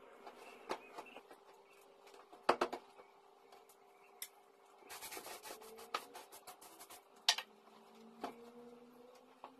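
Scattered light knocks and clatter of small objects being picked up and set down on wooden furniture, with a short rubbing sound about five seconds in. The loudest knocks come as a quick cluster a little before three seconds in. A faint steady hum runs underneath.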